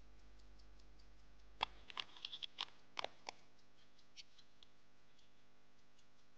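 Faint, even ticking of the restored 1912 silver pocket watch's running movement, about five ticks a second. Between about one and a half and three and a half seconds in come a few louder clicks of fingers handling the silver case.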